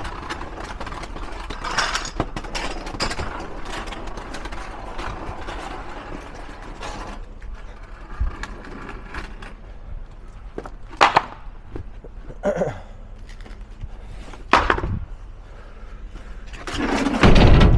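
Wooden euro pallets being handled on paving: a rough scraping and clattering at first, then a few separate sharp wooden knocks, and a heavier thump near the end as a pallet is set down.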